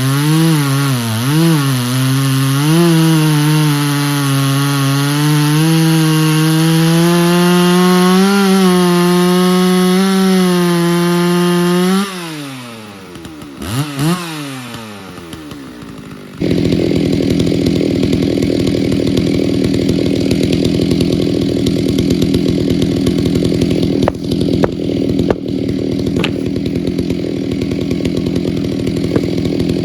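Stihl 064 two-stroke chainsaw running at high revs, its pitch dipping and recovering. About twelve seconds in the revs fall away, with a brief blip. After a few quieter seconds a steady lower rumble takes over, with a few sharp knocks near the end.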